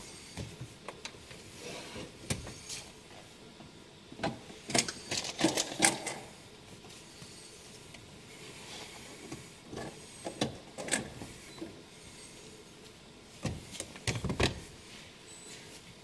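Clicks, taps and rustles of hands working plastic centre-console trim and a cable while a scan-tool lead is plugged into the car's diagnostic socket, in three short spells of activity with quieter handling between.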